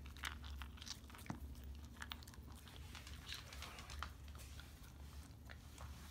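Dog chewing dry kibble: faint, irregular crunches as the pieces are bitten.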